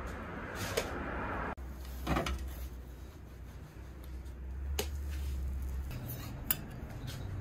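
Thin metal spatula tapping and scraping against a flat metal griddle as dorayaki pancakes are lifted and flipped: four sharp clicks spread a second or two apart over a low steady hum.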